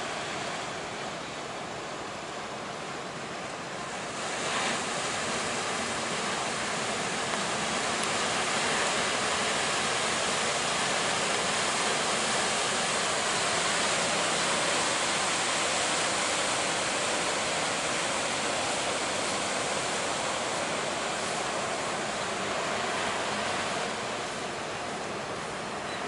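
Heavy surf breaking continuously on the beach, a steady wash of crashing waves that grows louder about four seconds in and eases a little near the end.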